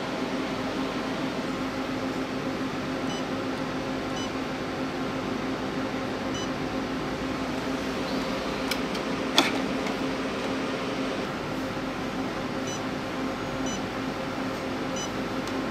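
Nubway NBW CL218 portable lipo laser machine running with a steady mechanical hum, as it does in Lipo Laser mode with its pads lit. A few faint short beeps come now and then, and a single click sounds about nine seconds in.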